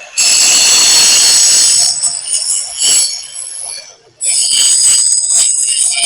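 Angle grinder grinding into a steel weld with a loud, high-pitched screech, grinding out the first weld and tack to remove slag pockets before the next pass. The grinding eases off about two seconds in, stops briefly just before four seconds, then bites in again.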